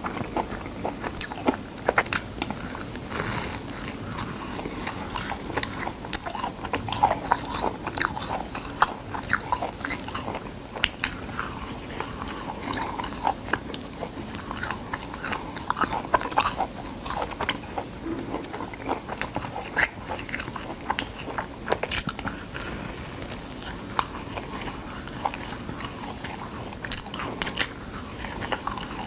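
Dried gamtae seaweed sheets crackling and crunching as they are torn and chewed, a dense, irregular run of sharp crackles.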